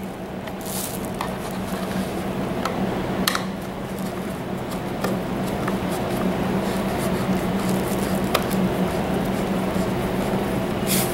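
Hand-screwing work with a Phillips screwdriver: scattered light clicks and plastic rustles over a steady low hum, as a power hub is screwed to a metal frame bar.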